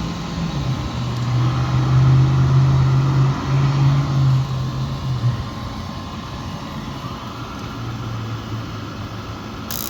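Gas furnace draft inducer motor running with a steady hum while fed 240 volts directly, bypassing the control board; that it runs shows the board was failing to power it. The hum is strongest in the first half and eases about five seconds in, and a short burst of hiss comes just before the end.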